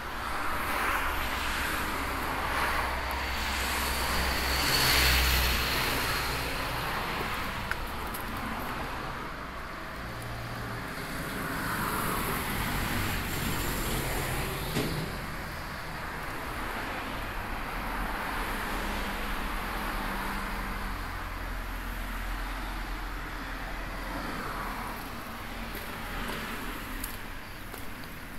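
Road traffic: cars passing one after another on a nearby road, each swelling and fading, the loudest about five seconds in.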